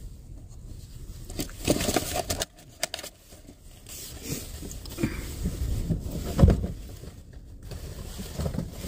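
Rustling and light knocks of food packaging and containers being handled inside a truck cab, with one louder thump about six and a half seconds in.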